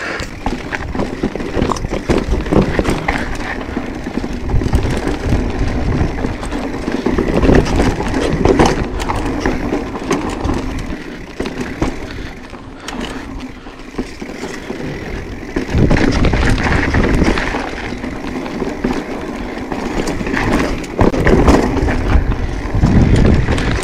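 Mountain bike rolling over sandstone slickrock: wind rumbling on the microphone and tyre noise that swell and fade, with scattered clicks and rattles from the bike.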